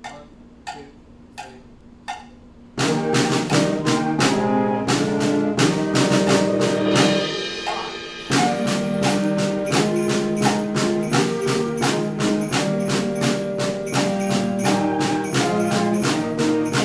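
Steady clicks, about one every 0.7 seconds, count in. About three seconds in, a beginner school band of woodwinds and percussion starts a concert-band march in held chords over a steady beat. The sound thins briefly about halfway through, then the full band comes back.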